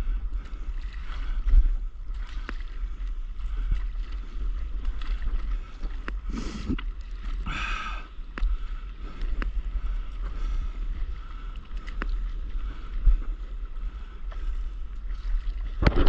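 Small waves sloshing and lapping against a stand-up paddleboard close to the microphone, with a steady low wind rumble on the microphone and scattered small splashy clicks. Two brief louder sounds stand out about six and a half and eight seconds in.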